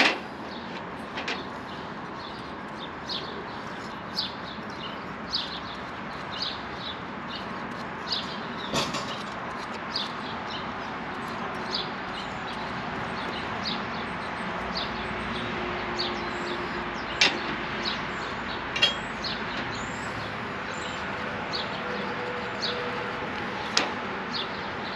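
Birds chirping in short, repeated calls over a steady hiss.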